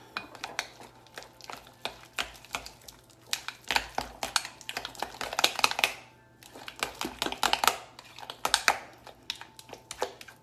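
A utensil mixing a thick ricotta and mascarpone filling in a bowl: quick clusters of scraping and clicking against the bowl, with a short pause about six seconds in.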